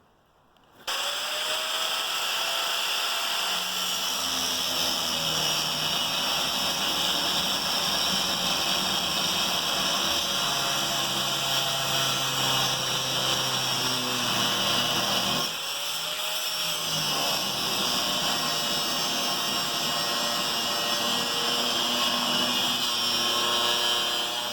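Angle grinder with a cut-off wheel cutting steel, a steady loud high hiss over the motor's whine. About two-thirds of the way through the cut eases for a moment, the motor pitch dips and comes back up, and cutting resumes.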